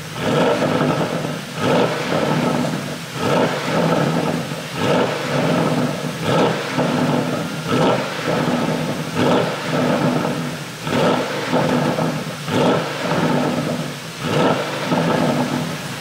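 Porsche Panamera GTS's twin-turbo V8 free-revving, blipped over and over about every one and a half seconds, with pops and crackles from the exhaust as the revs drop. It is running its stock ECU in Sport mode.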